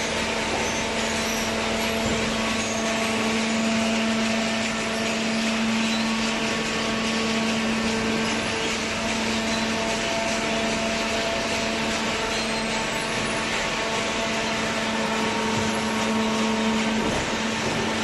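Hydraulic paper baler's motor and pump running steadily: a constant hum with a faint whine over a machine noise, with no knocks or pauses.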